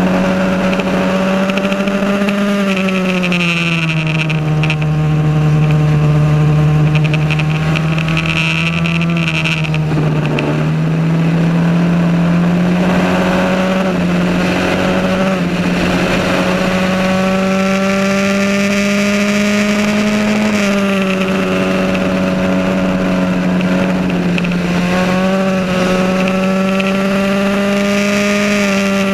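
Onboard sound of a 1982 Van Diemen Formula Ford's four-cylinder engine running hard at racing revs. The pitch drops about three seconds in and stays lower for several seconds, then climbs back and holds high, with shorter dips later on.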